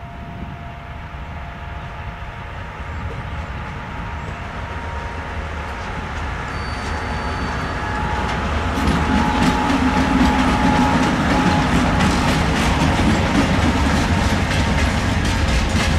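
2M62UM twin-section diesel locomotive hauling a freight train, its engine rumble growing steadily louder as it approaches. From about nine seconds in it passes close, with wheels clacking over the rail joints.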